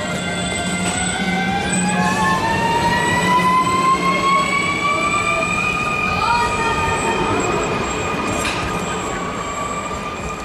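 Škoda 16Ev electric multiple unit's traction drive whining as the train moves along the platform: several tones rise together in pitch over the first six seconds or so, then hold steady.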